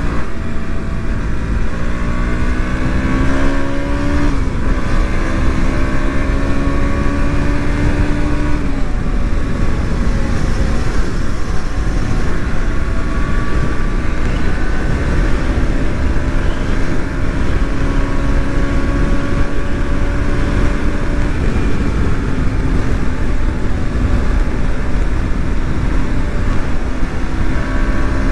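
KTM Duke motorcycle's single-cylinder engine accelerating hard, its note climbing through two gear changes in the first nine seconds, then holding steady at high cruising speed. Strong wind rush over the microphone runs underneath.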